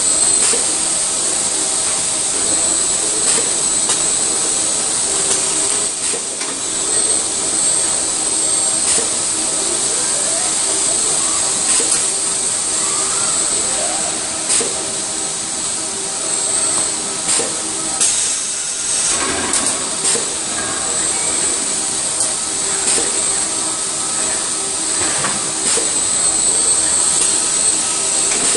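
Factory-floor machinery noise in a robotic car-body assembly cell: ABB industrial robots and their tooling running with a steady hiss and hum. Occasional clicks and clunks sound throughout, and a brief louder rush of hissing noise comes about two-thirds of the way in.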